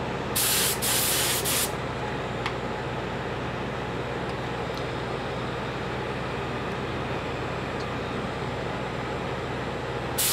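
Two short hisses of a paint spray gun about half a second in, over the steady blowing of a Wagner heat gun force-drying the freshly sprayed paint.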